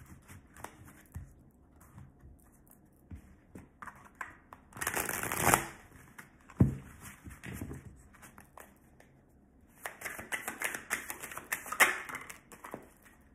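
A deck of oracle cards being shuffled by hand: soft runs of flicking and slapping cards, with a louder rush of cards about five seconds in, a low knock near seven seconds, and a dense run of quick flicks near the end.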